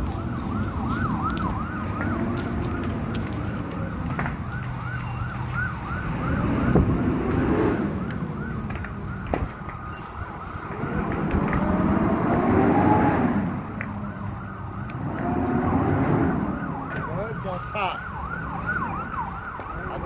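Emergency vehicle siren in a fast yelp, several warbles a second, with a second siren's slower wail rising and falling in the middle. Heavy truck engines rumble underneath, swelling louder a few times.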